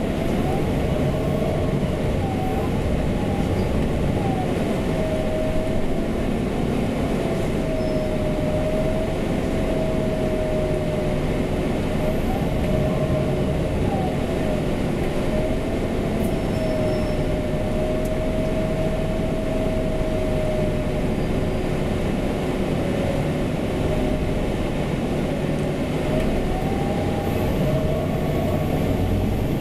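City bus running, heard from inside the passenger cabin: a steady rumble of drive and road noise with a whine that keeps wavering up and down in pitch.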